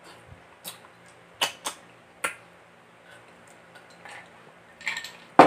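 Wet mouth smacks and sucking from a person eating a fish head by hand: a few short, separate smacks, with a louder cluster near the end.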